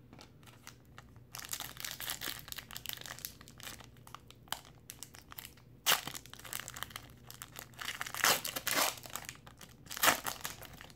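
Foil wrapper of a trading-card pack crinkling and tearing as it is opened by hand, starting about a second in, with sharp rips about six seconds in and again near the end as the cards are pulled free.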